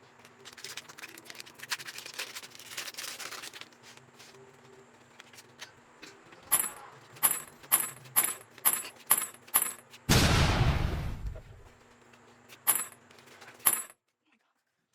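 Handling of a foil Pokémon card booster pack: a few seconds of crinkling, then a run of about eight sharp clicks at roughly two a second. A loud rushing swish falls in pitch over nearly two seconds, followed by two more clicks, and then the sound cuts off.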